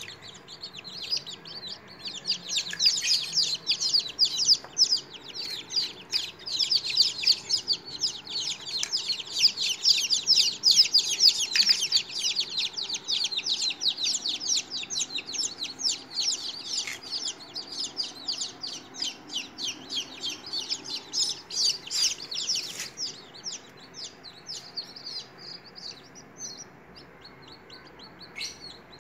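A brood of newly hatched chicken chicks peeping: many short, high, falling chirps overlapping continuously, thinning out near the end.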